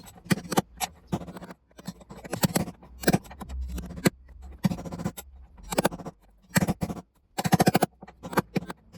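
Hammer striking a screwdriver used as a drift to drive a worn drum bearing out of a Bosch washing machine tub. The sharp metallic taps come in irregular clusters, with a quick run of about ten blows near the end.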